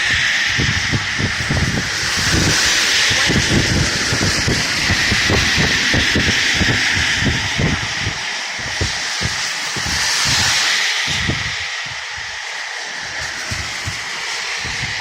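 Highway traffic on wet pavement: a steady hiss of tyre spray that swells twice as vehicles pass, with irregular low rumbling of wind buffeting the microphone.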